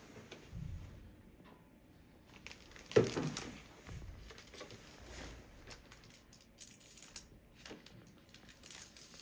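Plastic security evidence bag being sealed by hand: the film crinkles and rustles as the adhesive strip is uncovered and the flap is folded and pressed down, with one louder sharp crackle about three seconds in.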